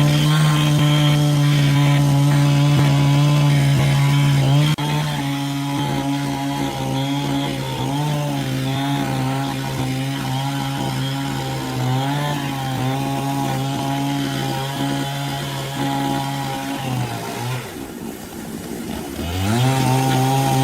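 Sawmill saw running under load as it cuts through wood, its motor hum sagging in pitch now and then as the cut bites. Near the end it winds down, then speeds up again with a rising whine.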